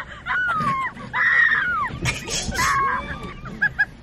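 Girls squealing and wailing in high, sliding voices: several rising-and-falling cries in a row, with short choppy bits near the end.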